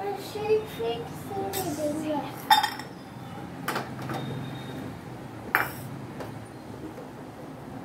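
Metal cookware clinking as a small pan is set on a gas stove burner and steel bowls are handled: a few sharp clinks, the loudest about two and a half seconds in, then two more spaced a second or two apart.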